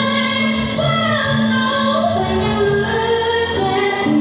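A woman sings through a microphone, holding long, gliding notes over steady musical accompaniment.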